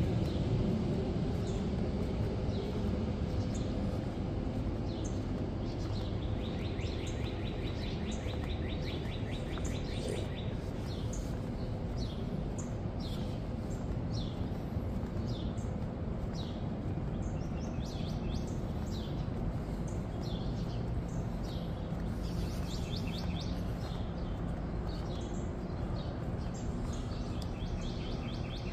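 Birds chirping, with rapid high trills and many short falling calls that grow busier in the second half, over a steady low rumble of outdoor background noise.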